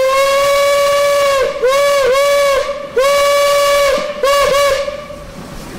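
Steam whistle of DB class 23 locomotive 23 023 sounding a series of blasts on one pitch: a long blast ending about one and a half seconds in, two short toots, a blast of about a second, then three quick toots near the end, the pitch sagging as each blast starts and stops.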